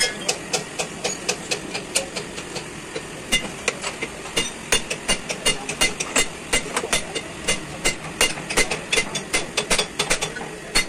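Hand hammer striking a metal truck suspension part in quick, regular, ringing blows, lighter at first and heavier and faster from about three seconds in.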